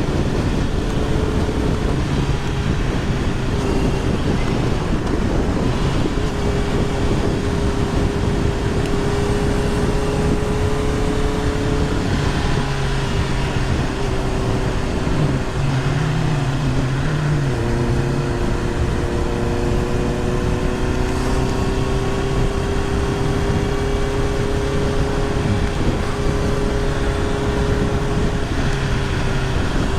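Motorcycle engine running steadily on the move, with wind noise on a helmet-mounted microphone.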